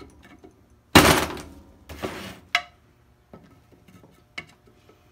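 Claw hammer striking the handle of a large screwdriver set in a pool pump's seal plate, driving out the stuck half of the old shaft seal. One hard blow about a second in, then two lighter knocks over the next second and a half.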